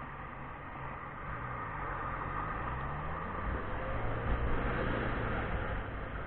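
Motorcycle engine running under way with wind rushing over a helmet-mounted camera. The engine note dips and rises a couple of times, and the wind noise builds to its loudest about four seconds in.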